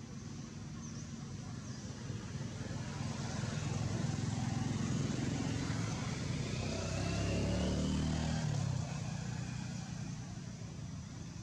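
A motor vehicle's engine passing nearby: a low engine rumble builds over a few seconds, holds for several seconds, then drops away sharply about nine seconds in.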